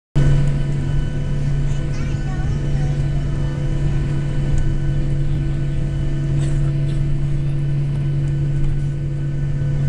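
Steady drone inside the cabin of a Boeing 737-700 rolling on the ground, its CFM56-7B turbofans at low power: a strong low hum with a few steady higher tones, even in level throughout.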